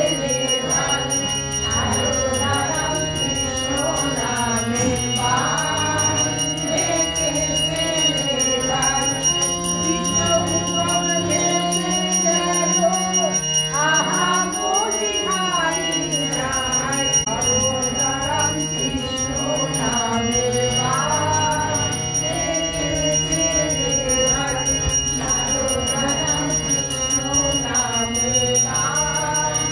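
Devotees singing an aarti hymn together, with a bell ringing continuously beneath the voices.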